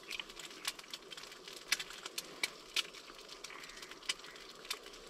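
Burgers sizzling in a frying pan on a gas camping stove: a soft hiss with fat spitting in irregular sharp crackles.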